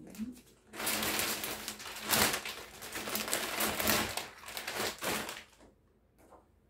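Clear plastic packaging bag crinkling and rustling as it is pulled off a folded duvet, stopping about five and a half seconds in.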